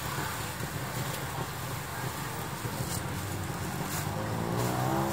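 Steady hum of street traffic, with a vehicle engine speeding up, rising in pitch near the end.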